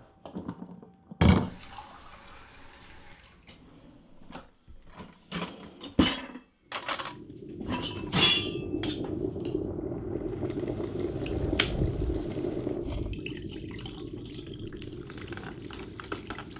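Cups clinking and knocking on a coffee machine, then about seven seconds in the coffee machine starts up with a steady hum as coffee pours into a mug.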